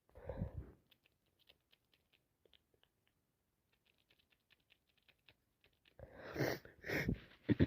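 A congested person with a sinus cold: a sniff at the start, then faint scattered crackling clicks, then from about six seconds in a run of loud, sharp gasping breaths building toward a sneeze, the loudest burst coming right at the end.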